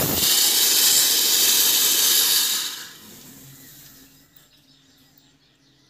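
LPG escaping under pressure from a burst filling hose: a loud hiss that eases off about three seconds in and dies away by about four seconds. The hose split because pressure built up in the line when the transfer pump was left off, as the owner explains.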